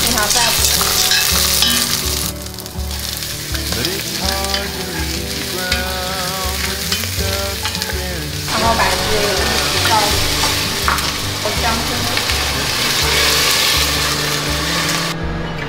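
Garlic, scallion and pieces of meat sizzling in hot oil in an enamelled cast iron pot while a spatula stirs them. The sizzle cuts off sharply near the end.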